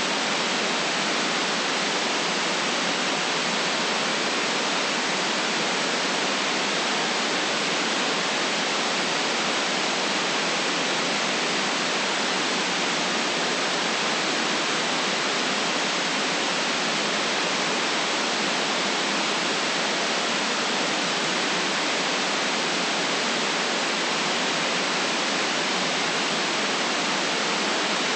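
Steady synthetic white noise: an even, unchanging hiss with little low end, cut off above about 8 kHz.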